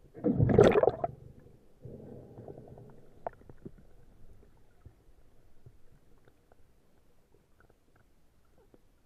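Air bubbles gurgling underwater close to the microphone: a loud burst lasting about a second, then a fainter gurgle about two seconds in.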